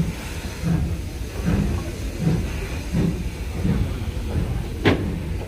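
BR Standard Class 2 2-6-0 steam locomotive pulling away from a station, its exhaust beating about every three-quarters of a second under a steady hiss as the coaches roll past, with one sharp clank from the train near the end.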